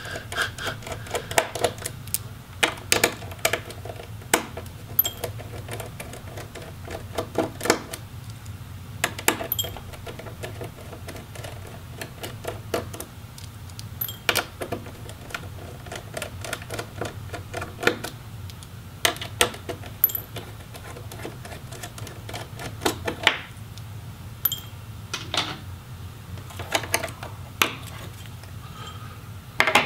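Irregular sharp clicks and taps of a small screwdriver and hand tools working the hinge screws and parts of a laptop display assembly, over a steady low hum.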